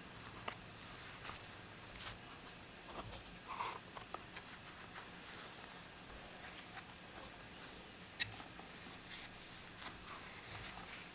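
Faint scratching and rubbing with scattered light clicks from hand work on a bicycle saddle.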